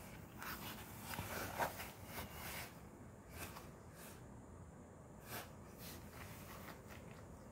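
Faint scratchy rustling and scraping of a cardboard box as a tabby cat shifts and rolls in it, in short clusters, loudest in the first few seconds.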